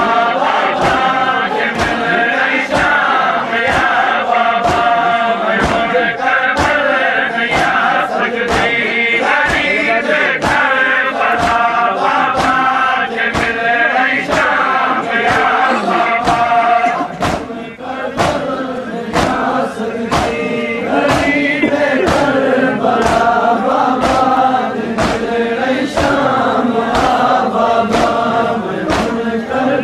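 A crowd of men chanting a Seraiki noha in unison, keeping time with rhythmic chest-beating (matam) at about one and a half strokes a second. The singing and beating briefly drop away a little past halfway, then resume.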